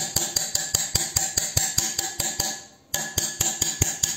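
Rapid, even tapping of a hard object on a hard surface that rings slightly, about five taps a second, with a short pause about three seconds in.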